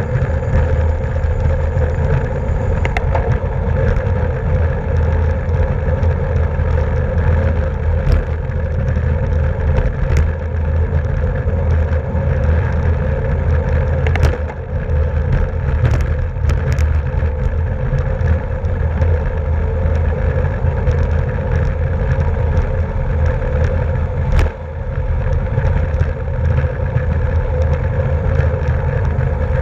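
Wind rushing over the microphone, with the road and drivetrain rumble of a racing bicycle at speed, from a camera on the moving bike. A few short, sharp clicks or knocks break through now and then.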